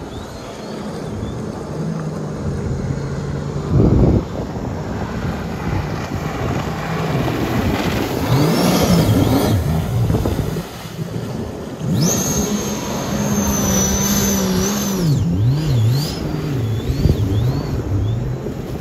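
Powerboat engine running hard, its pitch repeatedly rising and falling as the revs change, with a high whine from about twelve to fifteen seconds in. A loud thump comes about four seconds in.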